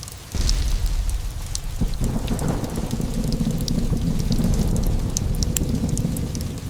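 A thunderclap breaks about half a second in and rolls on as a deep rumble, swelling again around two seconds in and easing off near the end. Under it are steady rain and the sharp, scattered crackle of a fireplace.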